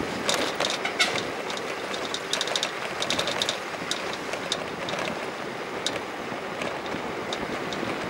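Steady rain, with many short sharp clicks of drops striking a hard surface, some coming in quick clusters.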